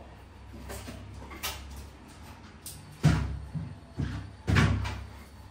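A few irregular knocks and thumps, small ones at first, the heaviest about three seconds in and again about a second and a half later.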